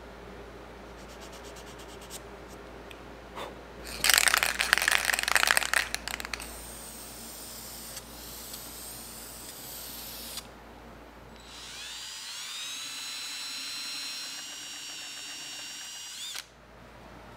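About four seconds in, a couple of seconds of loud rattling, then an aerosol spray can hissing steadily for about four seconds. Later a power drill spins up with a rising whine, runs steadily for a few seconds while drilling at a brass hinge on walnut, and stops suddenly.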